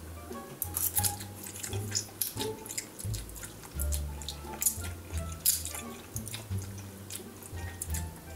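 Instant ramen noodles being slurped and chewed: quick, irregular wet slurps and mouth sounds, over background music with a low bass line.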